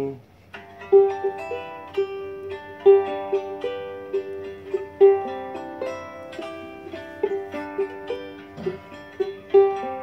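Small ukulele picked note by note, playing a slow single-line melody, with louder accented notes every second or two.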